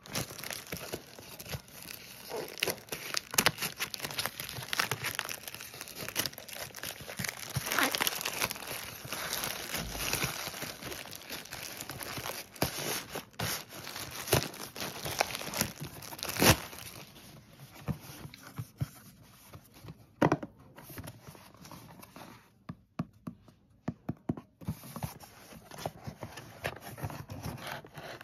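Plastic courier mailer being torn open and crinkled by hand, with dense crackling for the first half; then sparser taps and scrapes as the cardboard box inside is handled and opened.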